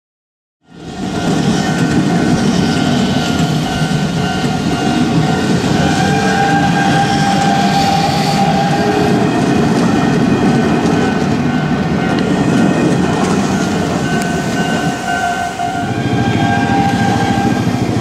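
Hanshin 5500 series electric commuter train passing close by, its wheels and running gear rumbling steadily on the track, with a level-crossing alarm ringing over it in steady tones. The sound starts abruptly less than a second in.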